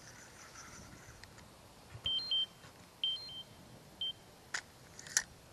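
Short electronic beeps at two high pitches, in three little groups about a second apart, followed by two sharp clicks near the end.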